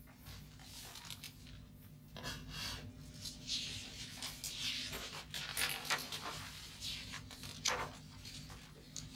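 Paper rustling: pages of a textbook and loose sheets being handled and turned on a desk, in a string of irregular rustles and scrapes with a few sharp clicks, starting about two seconds in.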